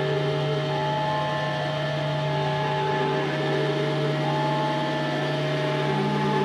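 Experimental drone music: a steady low drone held under several sustained higher tones that fade in and drop out one after another.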